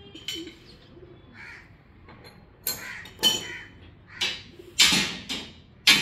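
Birds calling: a string of short, harsh calls, growing louder and closer together in the second half.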